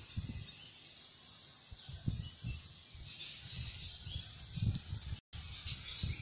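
Garden ambience: faint bird chirping from about halfway through, over irregular low thumps and rumbles on the handheld microphone, the strongest a little before the end.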